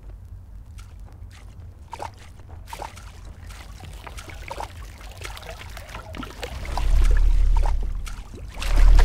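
Many small water splashes over a steady low rumble, growing denser, then two loud deep surges of water: one about seven seconds in and another right at the end.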